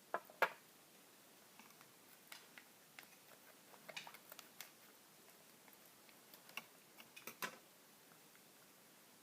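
Small plastic toy-kitchen pieces and a plastic measuring spoon being handled: irregular light clicks and taps, with two sharp clicks just after the start, a cluster around four seconds in and another, the loudest run, about seven seconds in.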